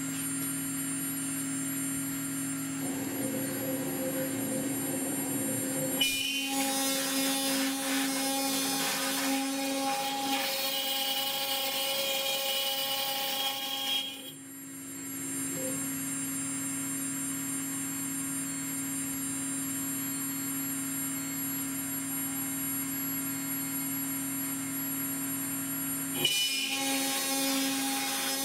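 CNC router spindle running with a small end mill cutting into a brass plate: a steady spindle whine, with louder, harsher cutting noise from about six seconds in until about fourteen, and again near the end as the bit bites into the metal.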